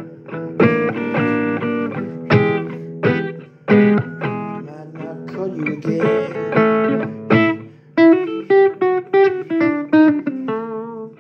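Blues guitar playing: strummed and plucked chords, then from about eight seconds in a run of quick single picked notes, roughly four a second.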